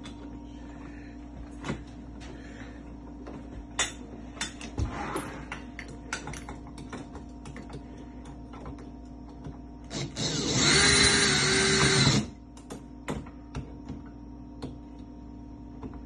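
Scattered clicks and knocks of hand work on door-lock hardware. About ten seconds in, a Makita cordless drill runs at a steady speed for about two seconds, then stops.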